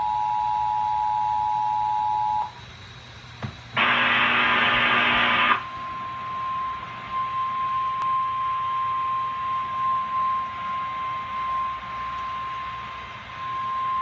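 The Emergency Alert System's two-tone attention signal holds steady and cuts off about two and a half seconds in. About a second later comes a loud, harsh burst lasting just under two seconds. Then a weather radio sounds the NOAA Weather Radio single-tone warning alarm, steady for about nine seconds, ahead of a tornado warning message.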